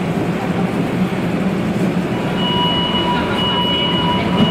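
Montréal Métro Azur (MPM-10) rubber-tyred train running and slowing into a station, heard from inside the car: a steady rumble, with a thin steady whine that comes in about two and a half seconds in as the train nears a stop.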